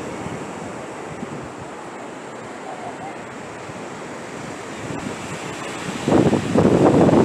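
Ocean surf washing on the beach, with wind noise on the microphone. A louder rush about six seconds in lasts a couple of seconds.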